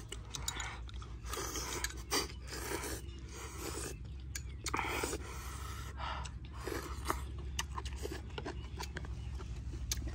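People eating chicken noodle soup: slurping noodles and chewing in short, irregular bursts, with a few sharp clicks.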